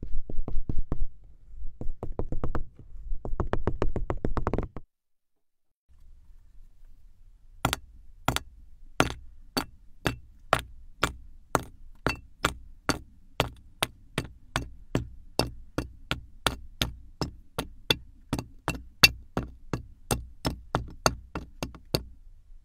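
Kinetic sand crunching and crackling for the first few seconds as it is pressed. After a short pause comes a steady run of sharp knocks, about two a second, as moulded kinetic-sand shapes drop one by one into a clear plastic bin and onto each other.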